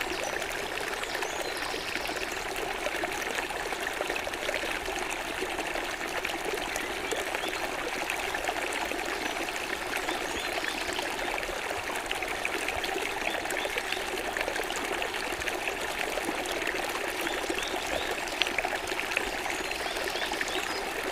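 Running water trickling and splashing steadily, a continuous even rush like a forest stream or small fountain.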